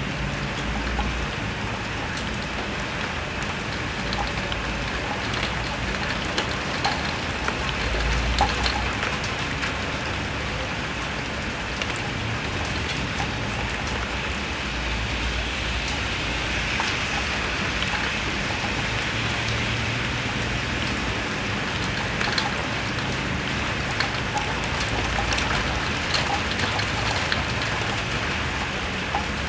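Heavy rain falling steadily, with drops pattering and dripping on the window and gusts of strong wind swelling now and then.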